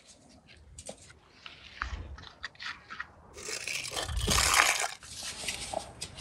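Coarse salt crunching as it is heaped and pressed by hand over a whole fish on a metal baking tray. A few faint clicks and rustles come first; the crunching grows dense about three and a half seconds in and is loudest just after four seconds.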